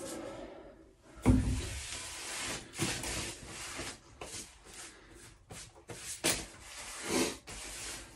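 PVC pipe and fittings being handled during a glue-up: irregular rubbing and scraping, with a sharp knock a little over a second in and a few smaller clicks.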